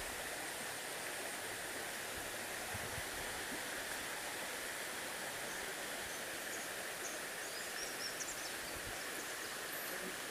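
Steady rushing of a shallow river flowing over rocks, with a few faint high chirps in the second half.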